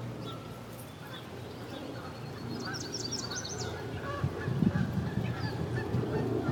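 Canada geese calling, getting louder and busier from about four seconds in, with scattered short chirps and a quick high bird trill near the middle.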